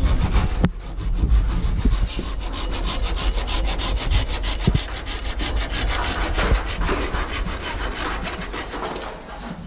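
Hand saw cutting through a wooden pole in steady back-and-forth strokes.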